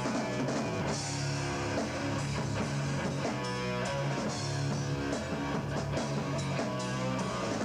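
Rock band playing live: electric guitar over a drum kit, with steady low notes underneath and regular drum hits.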